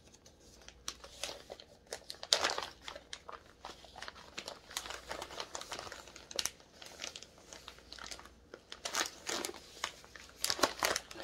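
Cross-stitch kit packaging crinkling and rustling as it is handled, in irregular scrunches throughout.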